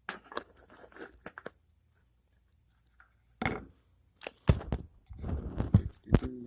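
Handling noise: irregular knocks, scrapes and rustling as things are moved about, with a cluster of louder thuds in the second half.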